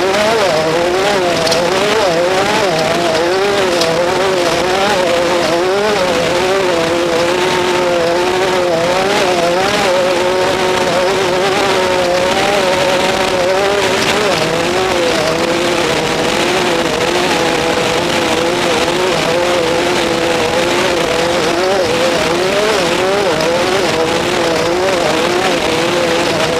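Off-road race vehicles' engines running hard, the pitch rising and falling over and over as the throttle opens and closes along the course.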